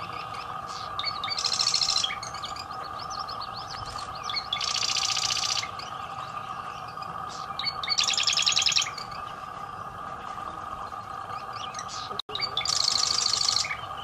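Marsh wren singing: four short, rapid rattling trills of about a second each, spaced three to four seconds apart, with faint chips between them.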